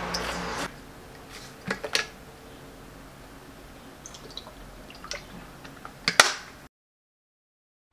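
Kitchen handling noises: a steady hiss that stops under a second in, then scattered sharp clicks and knocks, the loudest pair about six seconds in, then a sudden drop to dead silence.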